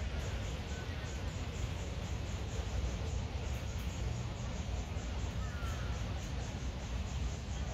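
Outdoor ambience: a steady low rumble under a faint insect chirring that pulses evenly, about four times a second, with a couple of brief bird chirps, one about a second in and another between five and six seconds in.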